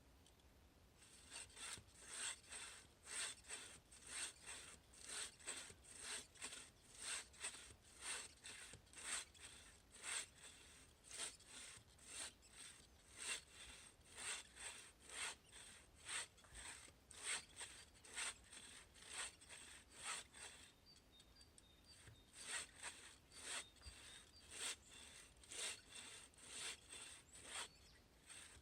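Handsaw cutting through a spruce log in steady back-and-forth strokes, about two a second, with a short pause about two-thirds of the way through before the sawing resumes.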